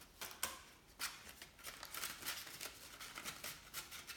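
Euro banknotes and a paper envelope being handled: notes slid and flicked into the envelope, a run of short, crisp, irregular paper rustles and flicks.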